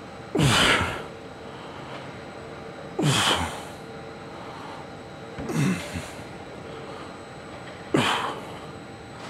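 A man's forceful breaths with a falling grunt, four in all about every two and a half seconds, one for each repetition of a heavy lifting set.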